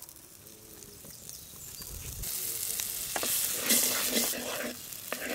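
Butter melting and sizzling in a hot pot as a wooden spatula pushes it around. The sizzle starts faint and builds to a steady hiss after about two seconds, with a few light knocks of the spatula on the pot.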